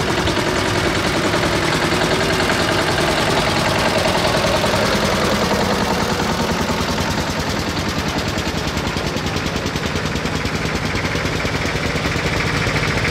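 Vintage tractor engines running as the tractors drive slowly past: a steady, rapid chugging of even exhaust beats.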